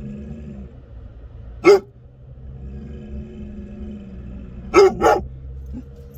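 American Akita barking inside a car's cabin: one loud bark, then two quick barks close together about three seconds later, over the steady low road rumble of the car.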